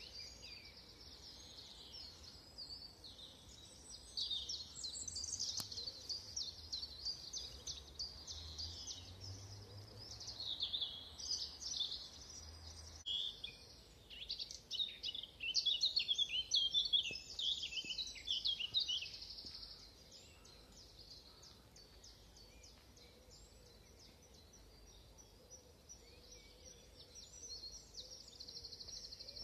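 Several songbirds singing over one another in the dawn chorus. About halfway through, a blackcap's fast warbling song comes in loud for five or six seconds, then fainter repeated notes and a trill from other birds carry on.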